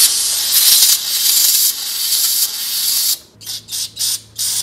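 Aerosol can of brake cleaner spraying in one long steady hiss through a thin extension tube and hose, flushing the hose out; about three seconds in it changes to four short spurts.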